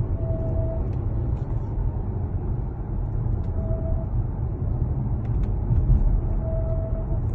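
Geely car cabin with a steady low road and engine rumble. Three short, steady-pitched squeals sound about three seconds apart: the intermittent squeal the owner complains of, which keeps coming back even with the part wiped clean.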